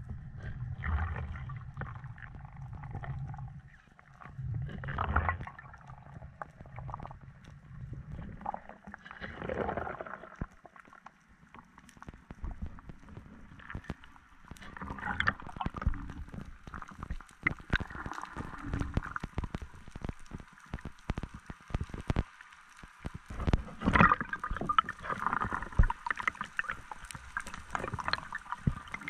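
Underwater sound picked up through a camera's waterproof housing: water gurgling and sloshing, with many scattered clicks and knocks.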